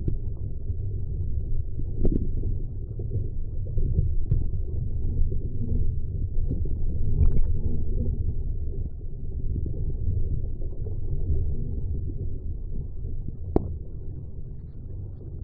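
Wind buffeting the microphone as a low, fluctuating rumble, with a few sharp knocks, the sharpest near the end.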